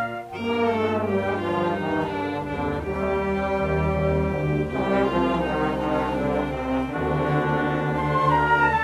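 Orchestral music with strings and brass playing sustained, slowly changing chords, after a short break right at the start.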